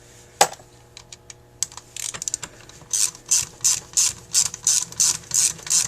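Ratchet tool clicking while loosening screws on a carburetor clamped in a vise: scattered clicks and a sharp knock about half a second in, then a steady run of short ratcheting strokes, about three a second.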